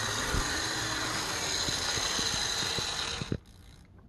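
HO scale Burlington Northern GP30 model diesel locomotive backing along the track: a steady electric motor whine with irregular clicks from the wheels on the rails, cutting off about three seconds in as the power is shut off and it stops. It is a used unit that runs a little rough.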